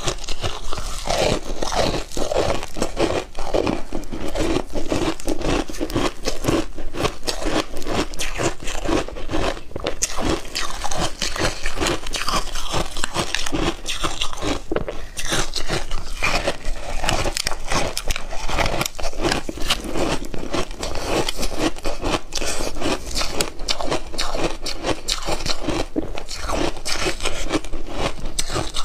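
Purple frozen ice being bitten and chewed: a dense, unbroken run of crackling crunches made of many sharp clicks.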